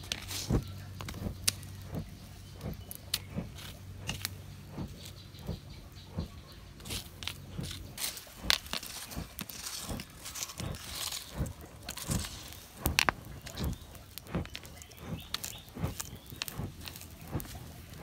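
Burning bamboo and glowing charcoal in a pit furnace crackling, with irregular sharp pops. A low steady hum underlies the first few seconds and fades out about six seconds in.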